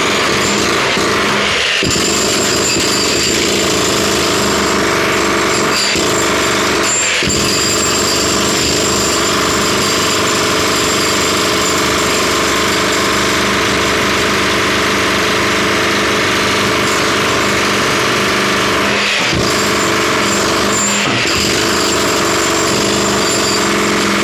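Jackhammer running almost without a break, with a few momentary pauses, as it breaks out a hole for drainage pipework.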